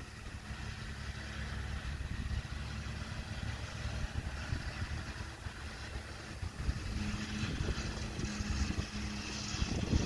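Farm tractor's diesel engine running at a steady pitch, heard at a distance; it is a little louder near the end.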